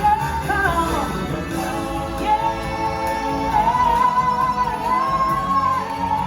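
Show music with a singer over a full band; the singer holds one long high note for about three and a half seconds.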